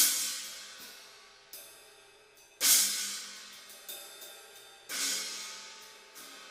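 A 12-inch Avatar China cymbal struck six times: three loud hits about two and a half seconds apart, with lighter strokes between them, each left to ring out and fade.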